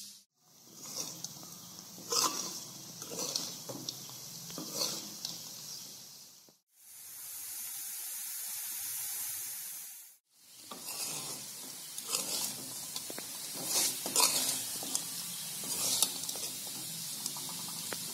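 Thin potato slices frying in groundnut oil in a metal kadai, sizzling steadily. A steel ladle scrapes and clinks against the pan as they are stirred. For a few seconds in the middle the stirring stops and only the sizzle is heard.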